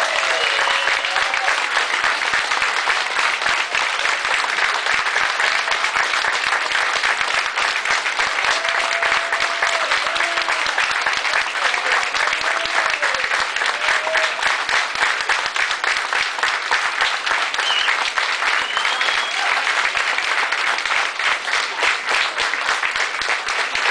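A large audience clapping steadily, with a few voices calling out and cheering over the applause.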